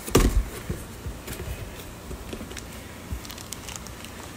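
Cardboard box flaps being handled and opened, with a couple of sharp knocks about half a second in, then light crinkling and clicking of plastic fish-shipping bags being touched.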